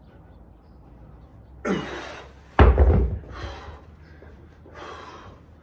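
A 100-pound dumbbell hits the floor with a single heavy, deep thud a little over halfway through, with hard breaths from the lifter before and after it.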